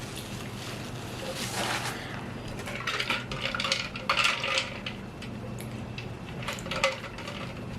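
A fork clinking and scraping against a glass jar of pickles: a few light, scattered clinks and clatters, bunched about halfway through and again near the end.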